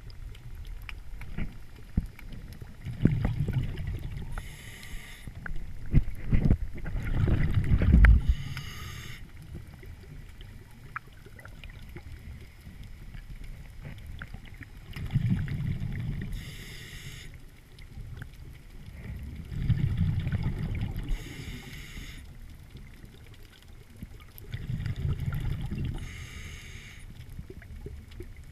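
Scuba diver breathing through a regulator underwater: a low bubbling rumble of exhaled bubbles followed each time by a short hiss of inhaling, in a steady cycle about every four to five seconds, five breaths in all.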